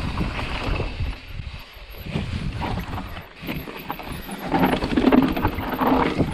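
Mountain bike rolling and skidding down loose volcanic dirt: tyres crunching and sliding on the loose ground, with a rumbling noise that swells louder in the second half.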